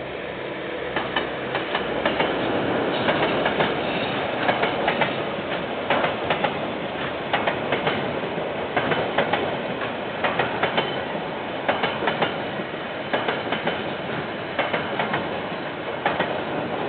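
Freight train of container wagons rolling past, with a steady rumble and the wheels clicking over the rail joints in pairs about every second and a half. Heard through a security camera's microphone, which cuts off the highs.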